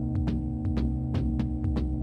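Background music with a steady beat: sustained low tones under regular sharp percussive ticks.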